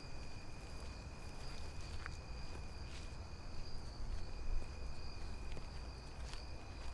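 Crickets chirping in a steady, high, unbroken trill, over a low rumble, with a few faint ticks.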